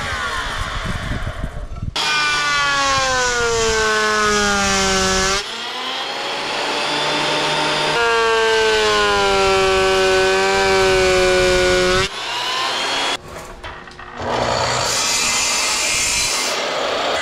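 Power woodworking machines cutting a jacarandá (Brazilian rosewood) board in a run of short, abruptly cut clips: a benchtop jointer and a thickness planer, their motor tones falling in pitch as the wood feeds through, then a sliding miter saw.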